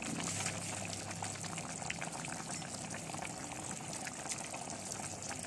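Thick chicken curry simmering in an open steel pot, bubbling and sputtering with a steady run of small pops.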